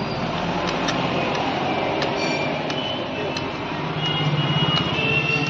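Road traffic: a vehicle engine running steadily, growing louder about four seconds in, with a few light clicks over it.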